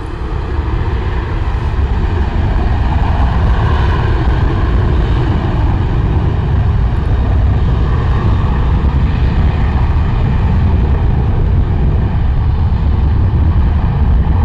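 Twin-engine narrowbody jet airliner's engines at takeoff thrust during the takeoff roll. A loud, steady rumble builds over the first second and then holds.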